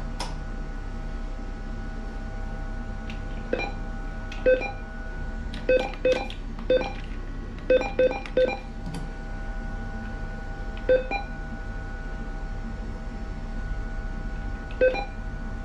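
ATM keypad beeping as keys are pressed: about nine short, identical beeps in uneven clusters, some in quick runs of three, over a steady machine hum.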